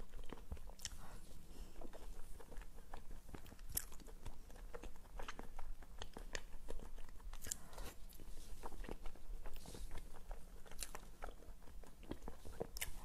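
Close-miked eating sounds as spoonfuls of soft cream jar cake are eaten: chewing and sharp mouth clicks, with a metal spoon scooping in a glass jar.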